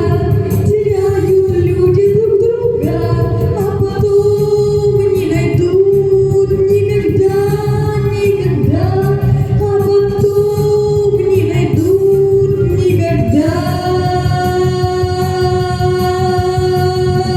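A woman singing a melody over a backing track, ending on one long held note that starts about three-quarters of the way in.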